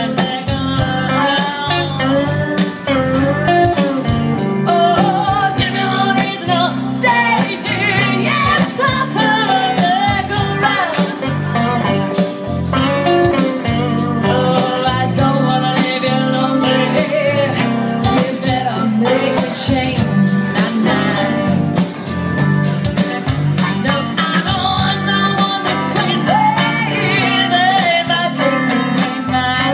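Live blues-rock song: a woman singing over her own strummed acoustic guitar, with an electric guitar playing lead lines.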